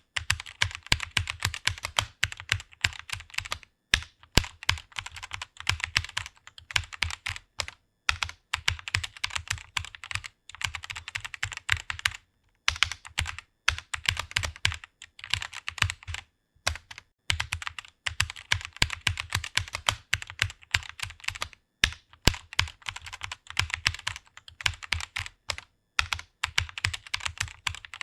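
Fast typing on a computer keyboard: a rapid run of keystroke clicks, broken by brief pauses every few seconds.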